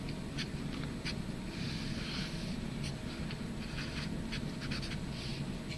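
Sharpie felt-tip marker drawing on paper: a run of short strokes and a few longer drawn lines, over a steady low room hum.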